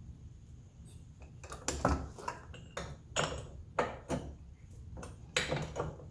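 Socket wrench working a 13 mm bolt loose: a series of irregular short metallic clicks and clinks, about two a second, starting about a second and a half in.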